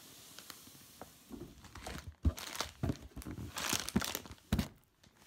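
Plastic bags of LEGO pieces crinkling and rustling against cardboard as the set's box is handled: a run of short crackles and clicks starting about a second in, with a few dull bumps.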